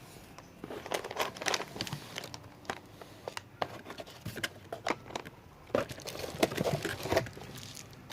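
Packaging being handled and opened: plastic wrapping crinkling and tearing in irregular crackles, busiest about a second in and again near the end.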